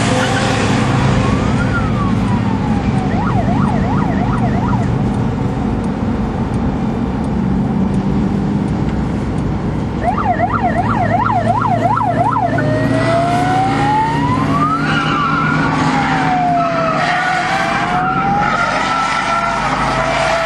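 A car engine runs steadily at speed, heard from inside the cabin, with an electronic siren sounding over it: slow rising and falling wails, and two runs of quick yelps, one a few seconds in and another about halfway through.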